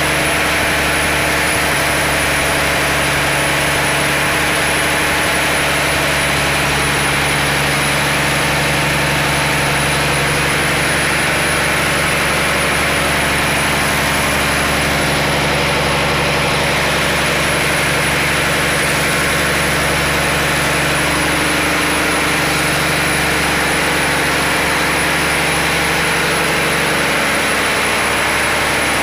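Fishing boat's inboard marine diesel engine running steadily under power, a loud unbroken drone heard from inside the enclosed engine room.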